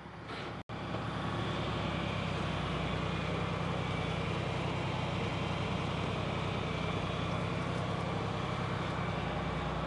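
Farm tractor's diesel engine running steadily under load as it works its way out of a soft, wet hole it had started to sink into. There is a brief dropout just under a second in.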